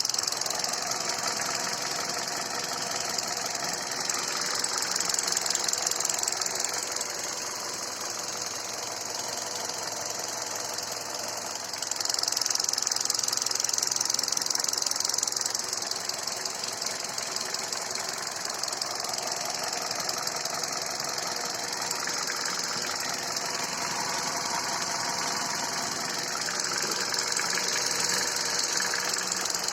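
Hyundai Solaris 1.4 four-cylinder petrol engine running with a fast, steady tapping knock. The owner is unsure whether the tapping is a fault. The level swells a few times.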